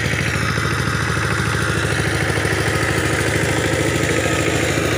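ACI Sifang two-wheel power tiller's single-cylinder diesel engine running steadily with a rapid, even chug as it drives the rotary tiller through the soil.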